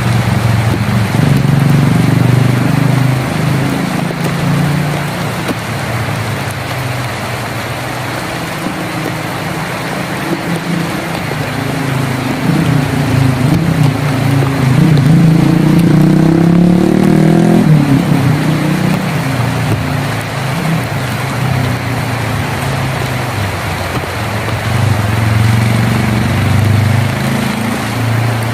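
Steady rain on a tin roof with a motor vehicle's engine running beneath it; the engine's pitch shifts and climbs, is loudest just past the middle, then drops away suddenly.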